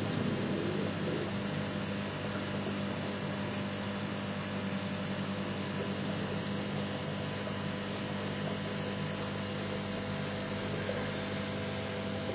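Steady low mechanical hum of a small motor, with a constant low tone, a little louder in the first second or two.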